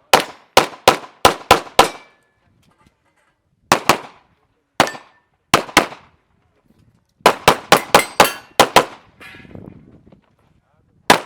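Handgun shots fired in quick strings, as in an IPSC practical shooting stage: a fast string of about six shots at the start, a few spaced single shots in the middle, and another rapid string of about eight shots later on.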